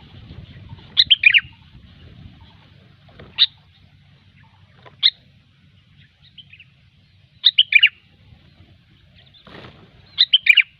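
Sooty-headed bulbul (kutilang) calling: short bursts of three or four quick, bright notes, with single notes between, repeated every few seconds.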